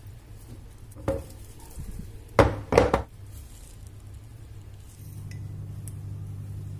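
Glass baking dish full of cake batter knocked against the tabletop to settle and level it: one knock, then two louder knocks a second or so later. A steady low hum comes in near the end.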